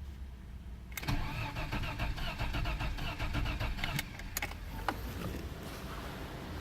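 BMW E34's M20B20 inline-six engine being cranked and starting about a second in, then running, with a few sharp clicks.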